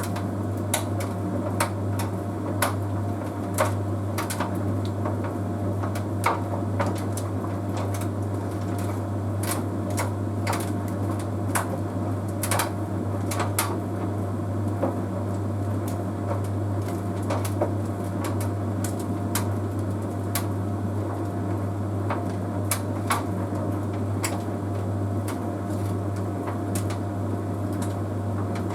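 Bosch Series 6 heat pump tumble dryer running mid-cycle: a steady low hum with the drum turning, and irregular light clicks about once or twice a second.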